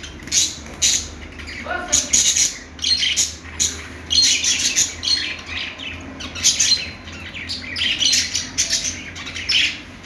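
Budgerigars chattering: a rapid, continuous run of short, scratchy chirps and squawks.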